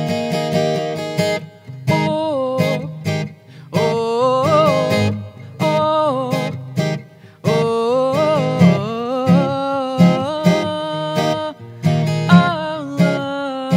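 Music: a strummed acoustic guitar with a woman singing over it, her voice coming in about two seconds in.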